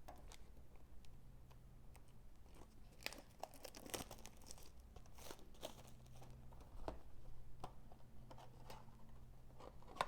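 Plastic shrink wrap on a trading-card booster box being torn and crinkled by hand: faint, irregular crackling and ticking, busiest in the middle.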